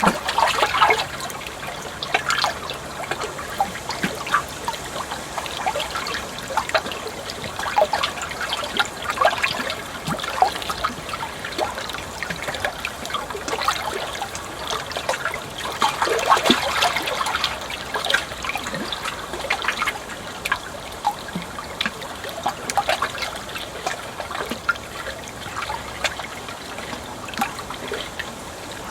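Water trickling and splashing steadily, full of quick irregular gurgles and splashes like a small stream running over stones.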